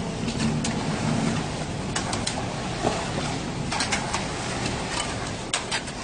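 Concrete mixer pump machinery running with a steady rushing noise, with sharp clacks scattered through it, several coming in quick pairs.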